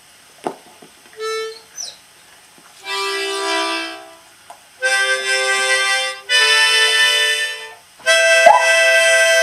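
Harmonica playing long held chords, starting about three seconds in, each lasting one to two seconds with short breaks between. A sharp knock comes about eight and a half seconds in.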